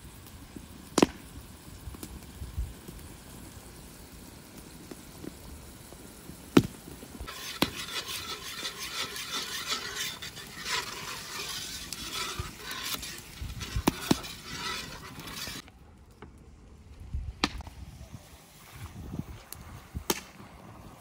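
Cooking at a pot: several sharp knocks of a utensil against the cookware, and for about eight seconds in the middle a hissing sizzle that cuts off suddenly.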